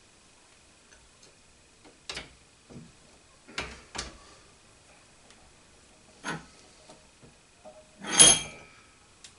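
Metal knocks and clunks of a steel mill quill being handled against a bench vise: several light separate knocks, then a louder clunk with a short metallic ring near the end.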